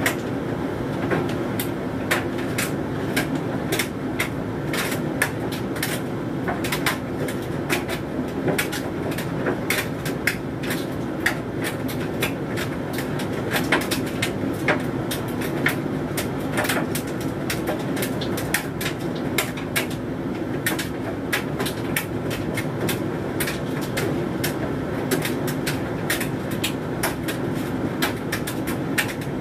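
Hoover Dynamic Mega 10kg condenser tumble dryer running mid-cycle on a load of synthetics: a steady motor and fan hum with the drum turning, and frequent irregular clicks and knocks as the load tumbles in the drum.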